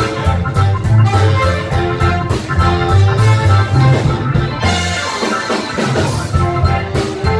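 Live band music: trumpet and saxophones over electric guitar and keyboard, with a steady repeating bass line and drums. The bass drops out about five seconds in and comes back a second and a half later.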